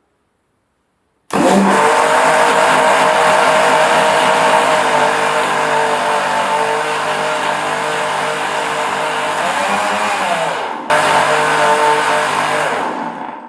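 Preethi Zodiac mixer grinder starting abruptly about a second in and running steadily at speed, churning cream and water into butter in its large jar on the final grind. It stops briefly near eleven seconds, runs again, then winds down near the end.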